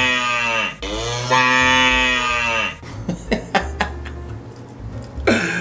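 A cow mooing twice in long, drawn-out calls that drop in pitch as each one ends; the first call is already under way. A few short clicks follow.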